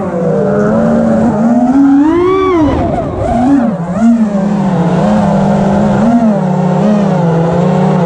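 An FPV quadcopter's brushless motors and propellers whining, heard up close from the onboard camera. The pitch rises and falls twice with throttle in the first three seconds, then settles into a steadier, lower whine with small wobbles.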